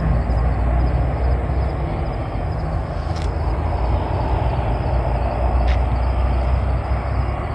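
Steady low rumble of vehicle and road noise on a highway, with two faint clicks along the way.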